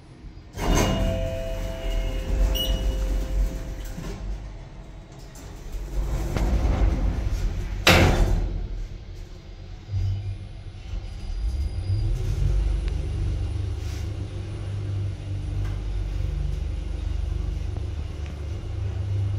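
Passenger lift heard from inside the car: a loud mechanical start under a second in with brief whining tones, and a sharp clunk about eight seconds in. Then the drive starts up and the car travels down with a steady low hum and rumble, rising a little about twelve seconds in.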